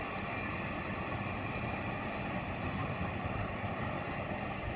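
Train rumbling steadily as it runs away down the line, a continuous even rumble with a faint steady whine above it.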